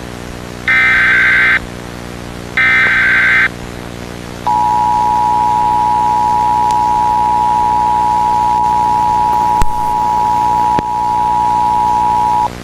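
Emergency Alert System header: two roughly one-second bursts of the shrill digital data tones, then the steady two-tone attention signal held for about eight seconds, with two brief clicks in its second half. It marks the start of a new emergency alert.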